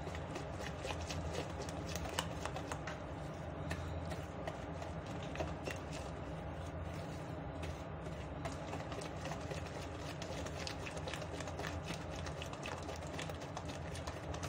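Wire whisk beating cake batter in a plastic bowl: quick, irregular clicking and tapping of the wires against the bowl, over a steady low hum.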